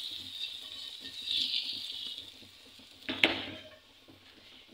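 Hot desi-ghee spinach tadka sizzling on top of the hareesa just after being poured on, the sizzle fading away. One sharp knock about three seconds in.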